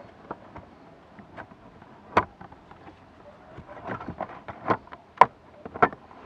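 Hard plastic trim cover being worked into its slide-in clips: a scatter of sharp plastic clicks and knocks, one loud one about two seconds in and several more over the last two seconds.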